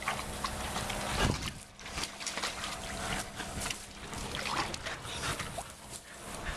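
Water sloshing and splashing in a plastic kiddie wading pool as dogs stand and move about in it, in irregular bursts.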